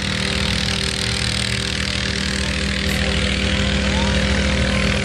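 Engine of a 1984 Chevrolet one-ton pickup running steadily at low speed as the truck rolls slowly forward, getting a little louder toward the end.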